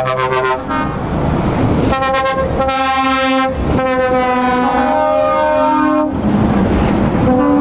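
A truck's multi-tone air horns blasting a run of long held notes that step up and down in pitch, several tones sounding together, over a low rumble, then cutting off abruptly.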